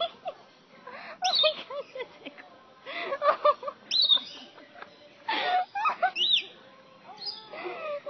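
Lorikeets calling: a run of short chirps and squeaky calls that rise and fall in pitch, coming in bouts with brief pauses between.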